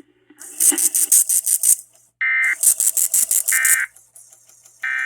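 Emergency Alert System end-of-message data bursts: three short, buzzy digital tone bursts about a second apart, starting about two seconds in. They play over a music bed with a fast ticking beat.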